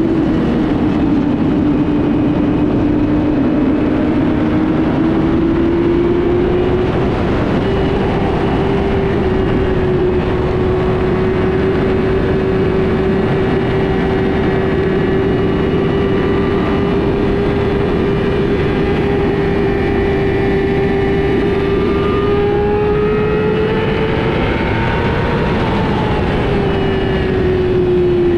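Motorcycle engines running hard during track practice: one steady engine drone holds its pitch through most of it and drops away near the end, while fainter engines rise and fall in pitch around it.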